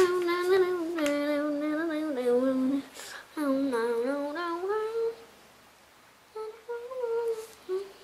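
A child humming a wandering tune in long, gliding notes while working. The humming breaks off briefly about three seconds in, then returns more softly and patchily in the second half.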